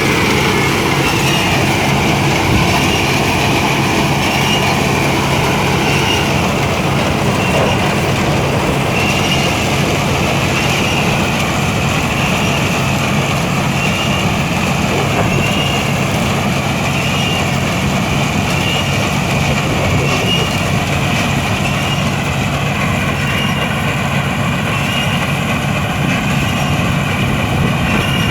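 Rice combine harvester running steadily, its engine a constant drone under a high whine that wavers in pitch at a regular pace.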